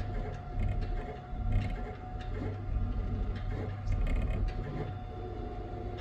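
Stratasys F370 FDM 3D printer mid-print, its print head motors whirring in short irregular moves over a steady hum.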